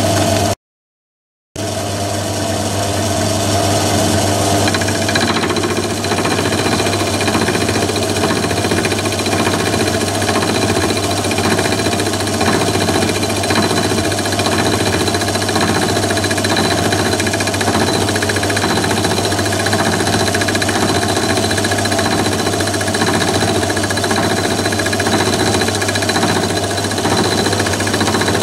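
Myford ML7 lathe running, with an end mill in its chuck milling a slot in a metal component clamped to an angle plate on the cross-slide: a steady motor and drive hum with the rough chatter of the cutter. The sound drops out briefly about a second in, and the cutting noise gets rougher from about five seconds in.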